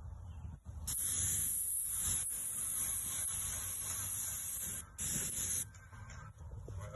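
Paint sprayer gun hissing as paint is sprayed onto wooden fence boards, in two trigger pulls: a long spray of about four seconds starting about a second in, then a short burst just after it stops.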